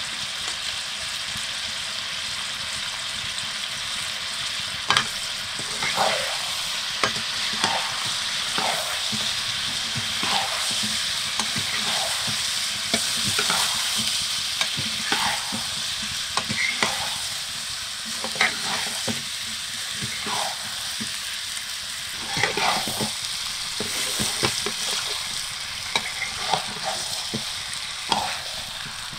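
Chicken pieces and spices sizzling in a metal kadai, stirred with a wooden spatula that scrapes and knocks against the pan. Only the sizzle is heard at first; irregular stirring strokes start about five seconds in.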